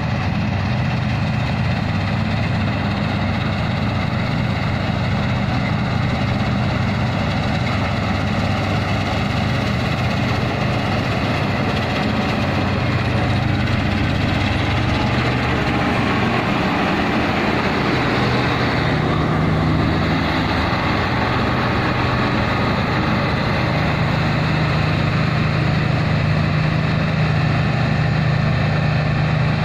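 Combine harvester running steadily with a continuous engine hum; the engine note changes a little past halfway through.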